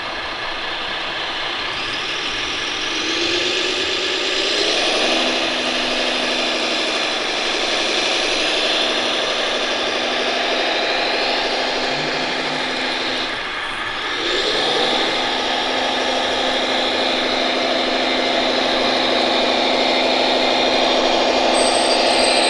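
Radio-controlled model articulated dump truck running, a steady mechanical drive sound with a higher whine. Its pitch rises a few seconds in as it speeds up, breaks off briefly about halfway through, then rises again and holds.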